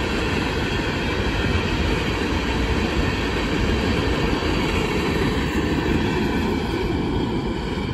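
Freight train's steel-wheeled aggregate hopper cars rolling past on the rails: a steady, dense rumble of wheels on track.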